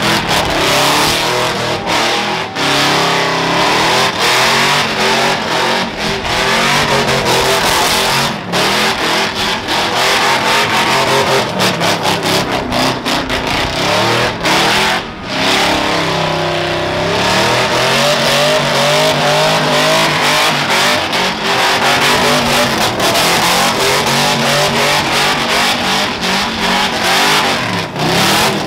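A loud square-body Chevy pickup's engine held at high revs as its rear tyres spin in a burnout, the revs wavering up and down as it swings in circles, with a few brief dips where the throttle lifts.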